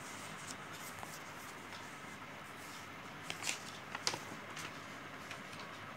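Quiet room tone with a steady faint hiss, and a few brief soft clicks and rustles about three and four seconds in.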